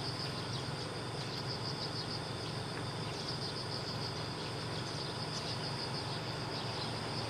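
Insects, crickets or similar, trilling steadily in a high continuous pulsing chirr, over a low steady hum.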